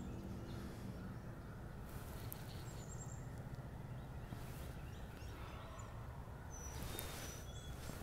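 Wild turkey gobbler gobbling faintly, with small songbirds chirping high over a low steady background rumble.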